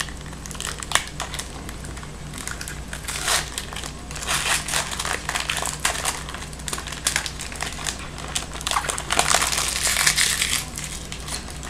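A hockey card pack's wrapper crinkling and crackling in irregular bursts, with sharp clicks, as the pack is torn open and the cards are handled. A steady low electrical hum runs underneath.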